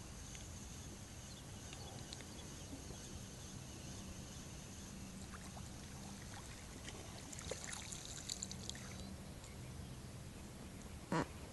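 Small fish being reeled in at the water's surface beside a boat: light splashing and dripping, busiest about eight seconds in, over a faint steady hum. A short sharp knock comes just before the end.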